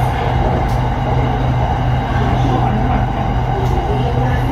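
Inside a Bangkok SRT Red Line electric commuter train running at speed: a steady cabin rumble with a constant low hum.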